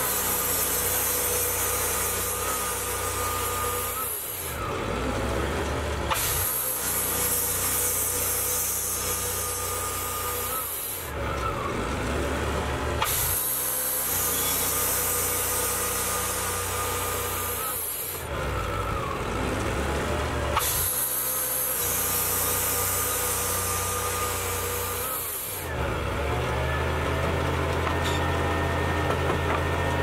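Portable band sawmill's gas engine running while its band blade saws through a cherry log, a steady rasping hiss of cutting that drops away briefly every few seconds. About four seconds before the end the cut finishes and the engine runs on alone at a lower, steadier note.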